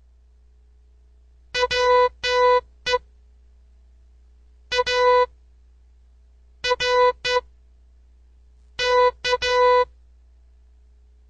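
Morse code sent as electronic beeps on one steady tone: four letters of dots and dashes, with pauses of about two seconds between the letters, forming a word to decode.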